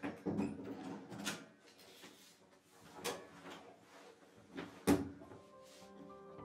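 Bathroom mirror cabinet being opened and rummaged, a string of separate knocks and clicks, with its mirrored door knocking shut about five seconds in, the loudest of them.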